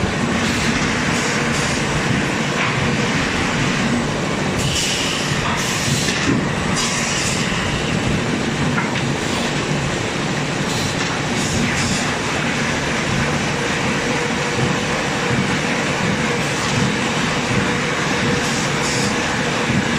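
Veneer stacker conveyor running, its belts and rollers carrying sheets of wood veneer, with a steady mechanical rattle and a few brief clatters about five to seven seconds in.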